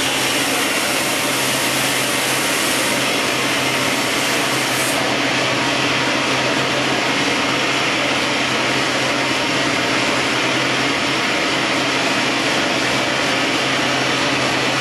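Steady rush of gas burners: the glory hole furnace and a hand-held propane torch heating the glass, over a low steady hum.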